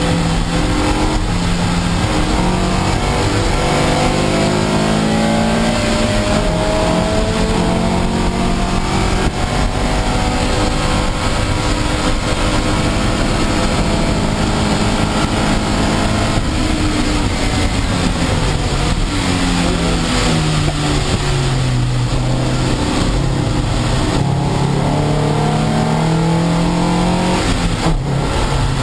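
Toyota MR2 race car's mid-mounted engine heard from inside the cockpit, rising in pitch and dropping back repeatedly as it is driven hard through the gears. Under it runs a steady hiss of rain and spray from the wet track.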